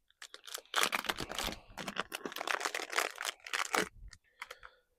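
Packaging crinkling and rustling as the replacement backup camera is taken out and handled: dense crackling for about four seconds, easing to a few light clicks near the end.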